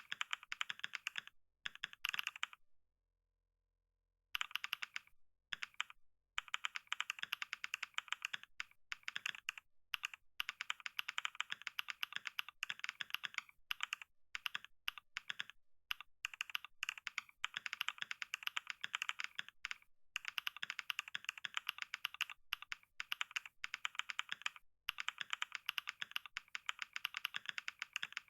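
Computer keyboard being typed on fast, a dense stream of rapid key clicks. There is a pause of about a second and a half a few seconds in, and a few short breaks soon after.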